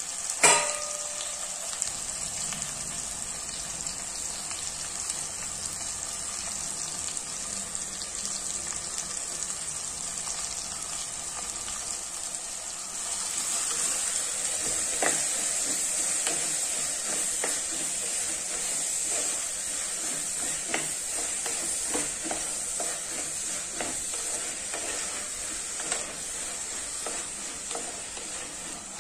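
Bottle gourd pieces sizzling in an uncovered clay pot on a gas flame, with one sharp knock about half a second in. From about 13 seconds a wooden spatula stirs the vegetables: the sizzle grows louder, with repeated short scrapes and knocks of the spatula against the clay pot.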